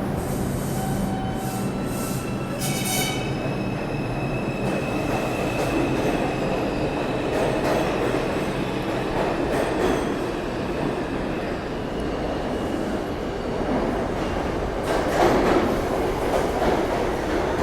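New York City subway train running on the rails with a continuous rumble. A high-pitched wheel squeal starts a few seconds in and slowly fades, and the noise swells louder near the end.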